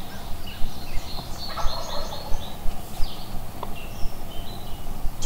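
A wild turkey gobbler gobbling once, about a second and a half in, with small songbirds chirping throughout.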